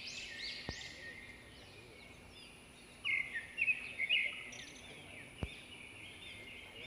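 Birds calling: a run of quick, repeated arching chirps, then a cluster of louder, sharper chirps about three seconds in.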